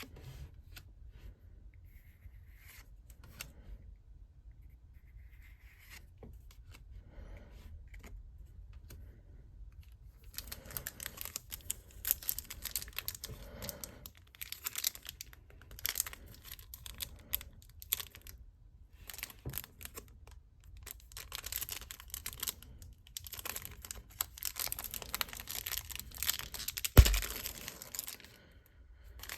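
Pokémon card packaging being torn open and crinkled by hand. Faint handling sounds at first, then from about a third of the way in, repeated crinkling and tearing, with one sharp, loud snap near the end.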